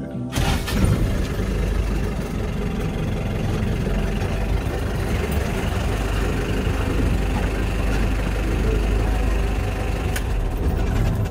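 Safari vehicle's engine idling with a steady low rumble, heard from inside the vehicle.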